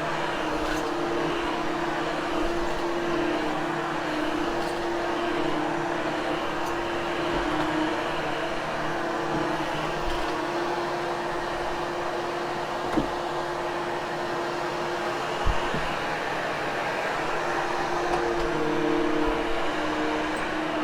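Hoover Hushtone upright vacuum running steadily with an even motor hum while it grooms carpet. Two brief knocks come a little past halfway, about two and a half seconds apart.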